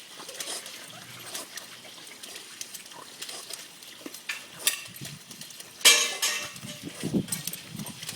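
A dog playing, with scattered short noises and one louder burst about six seconds in.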